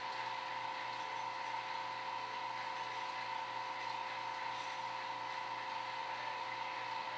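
Steady machine hum with a few constant whining tones that do not change.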